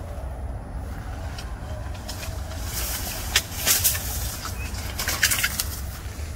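Palm fronds rustling and swishing as someone pushes through them, with louder crackly brushes about three and a half seconds in and again around five seconds, over a steady low rumble.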